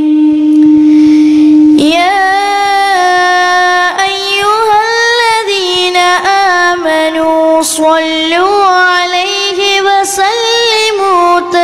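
A boy's solo singing voice, amplified through a microphone: it holds one long steady note, then about two seconds in moves into a flowing melody with many gliding ornaments.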